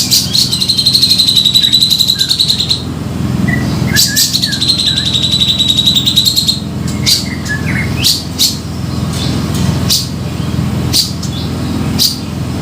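Grey-cheeked bulbul (cucak jenggot) calling: two long, rapid, buzzing trills of about two and a half seconds each, with sharp short call notes between and after them, over a steady low hum.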